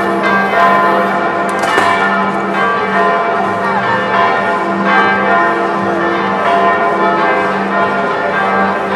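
Many bells ringing together, their long tones overlapping at a steady level.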